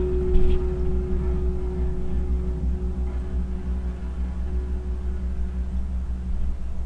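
Jazz guitar-trio recording played back through Monitor Audio Silver 500 6G floorstanding speakers: a held mid-pitch note slowly fading over a steady deep bass tone.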